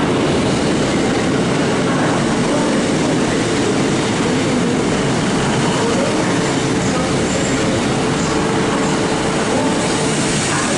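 Northern multiple-unit passenger train running past along a station platform: a steady rumble of wheels on rails, with a steady whine held through.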